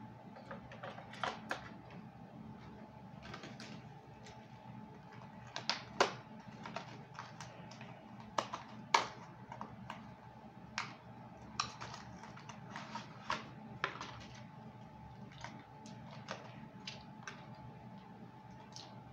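Irregular small plastic clicks and scratches from hands fiddling with a small black plastic part and poking at it with a thin tool, the sharpest clicks about six and nine seconds in, over a faint steady hum.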